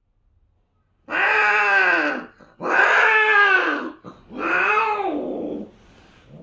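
Cat mating yowls between a British Shorthair and a Bengal: three loud, drawn-out yowls in a row, each rising and then falling in pitch.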